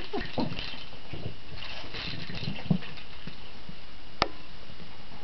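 Border terrier puppy playing about on a carpet, with scattered soft scuffling noises and one sharp knock about four seconds in.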